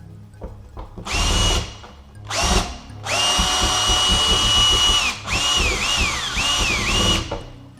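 Cordless drill backing out door hinge screws. It runs in two short trigger pulses, then a steady whine for about two seconds, then a few brief pulses whose pitch drops as the motor spins down.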